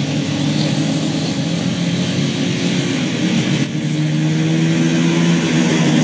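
Ski-patrol snowmobile engine running steadily, its pitch rising a little a little past the middle.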